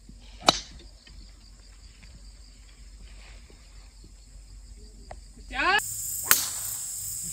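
Golf club striking a teed-up ball on a tee shot: one sharp crack about half a second in, then quiet outdoor ambience.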